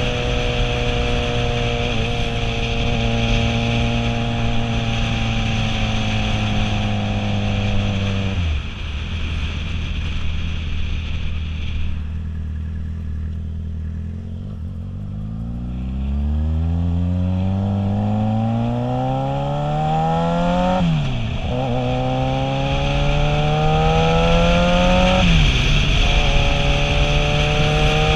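Motorcycle engine heard from the rider's helmet, with wind rush. It cruises steadily, then the revs fall about eight seconds in as it slows nearly to a stop and the wind dies away. From about sixteen seconds in it accelerates with rising revs, shifting up twice, and the wind noise returns.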